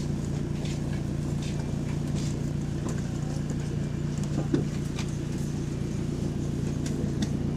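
Diesel engine of a double-decker bus running steadily, heard from on board as a constant low drone, with a few light rattles and clicks. The uploader says the bus has a bad turbo.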